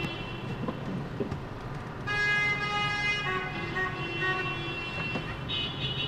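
Several car horns honking, long held blasts of different pitches that overlap, starting about two seconds in and going on to the end, over steady freeway traffic noise. Heard from inside a car.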